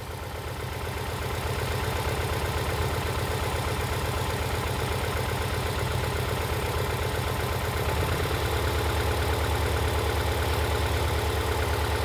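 2011 Ford Escape's 2.5-litre inline-four engine idling roughly with a steady low, pulsing note: it is misfiring on cylinder one.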